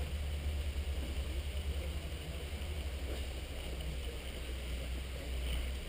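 Low, uneven rumble of wind buffeting the camera microphone, with little else to hear.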